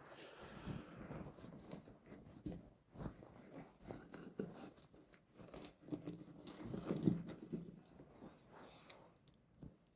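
Rustling and scattered light clicks of small hand tools and driver bits being picked up and handled.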